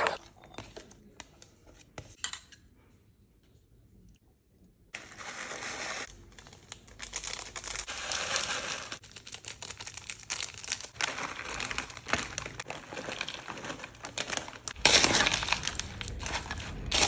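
After a short quiet stretch, crinkling snack packets and dry crushed instant noodles and crisps falling into a plastic bowl, with a spoon clinking as it mixes the crunchy chatpate. The mixing is louder near the end.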